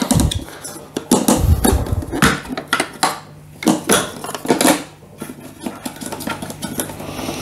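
Plastic lid latches of an Aquael Ultramax canister filter being unsnapped one after another by hand: a series of sharp plastic clicks and clacks, some in quick clusters.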